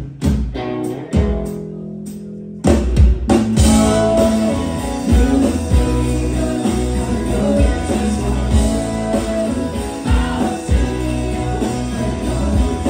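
Rock band playing live on electric guitars, bass and drum kit: sparse guitar and bass notes at first, then the drums and full band come in loudly about three seconds in, with cymbals.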